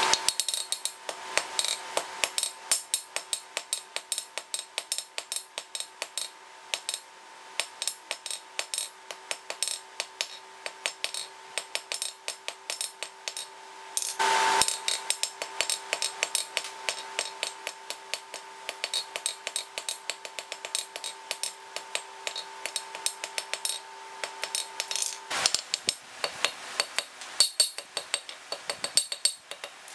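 Ball-peen hammer striking a hot steel rod on an anvil in quick, light blows, about three to four a second. Under the blows the anvil rings steadily at a clear pitch. The ring stops about 25 seconds in, and the blows carry on without it as the work moves to the anvil horn.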